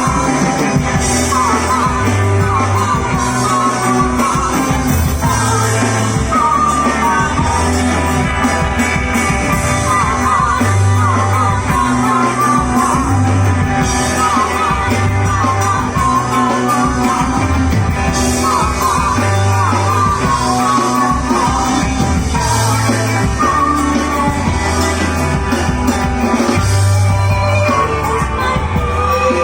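A live rock band playing a song: a singer's voice over guitar, a moving bass line and drums with cymbals.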